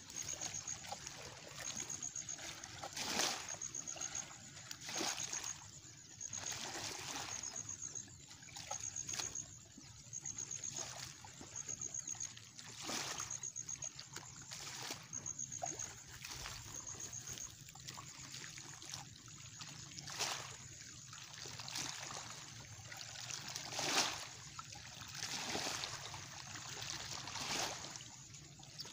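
A hooked fish splashing and thrashing at the surface while it is pulled in by hand line, splashes coming every second or two. A high, rapid ticking call in short runs repeats through the first half.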